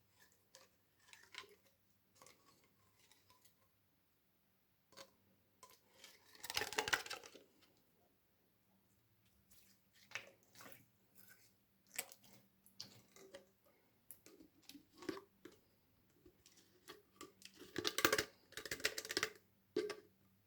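Slime being squished and worked, giving scattered small crackles and clicks with two louder bursts of squelching, one about a third of the way in and one near the end.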